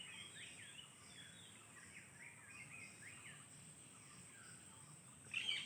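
Faint birds chirping, with many short overlapping chirps and a slightly louder bit of chirping near the end.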